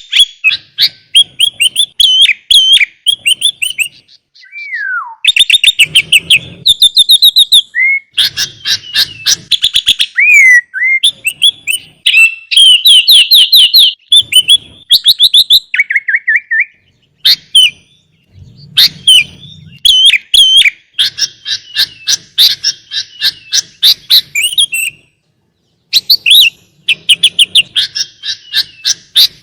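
Sooty-headed bulbul (kutilang) singing a long, varied song of rapid chirping runs and trills in quick phrases. One clear falling whistle comes about five seconds in, and there is a brief pause near the end.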